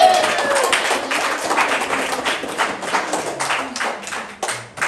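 A small group of people clapping, loudest at the start and tapering off toward the end.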